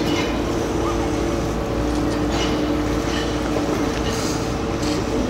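Vaporetto waterbus diesel engine running steadily under way, a constant drone with a few steady tones.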